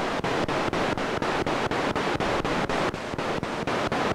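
Spirit box sweeping through FM/AM radio stations: a steady rush of radio static broken by short regular cuts about five times a second as it jumps from station to station.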